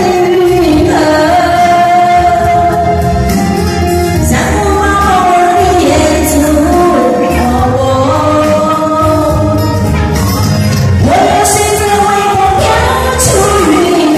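A person singing into a microphone over a karaoke backing track, with long held notes sliding between pitches.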